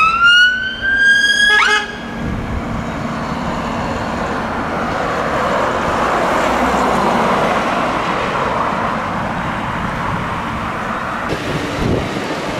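An emergency vehicle's siren rising in pitch, cut off sharply after about two seconds. It is followed by a car passing, its road noise swelling and fading through the middle.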